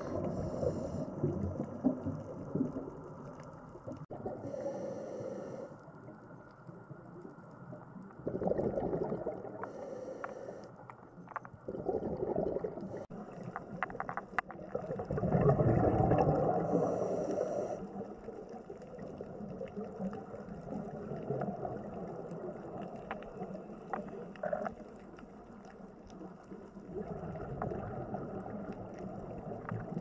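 Underwater sound picked up by the camera: muffled bubbling and gurgling that swells and fades, with a short hiss every several seconds.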